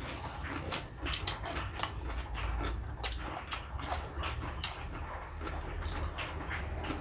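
Eating noises at a meal: chewing and mouth smacks, with many short, irregular clicks.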